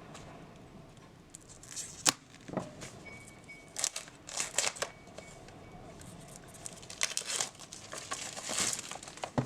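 Crinkling and tearing of a tarot deck's packaging as it is opened by hand, in short irregular bursts, with a sharp click about two seconds in.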